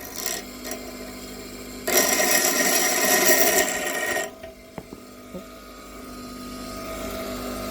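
Electric grinder running with a steady hum, grinding a stainless steel nut to make it round; a loud stretch of grinding about two seconds in lasts a little over two seconds, followed by a couple of light knocks, and the motor hum slowly grows louder near the end.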